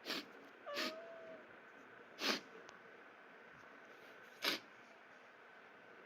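A man sneezing four times in quick short bursts, the last two the loudest.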